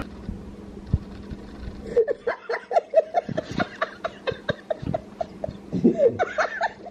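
A man laughing: a quick string of short laughs starting about two seconds in and running on until near the end.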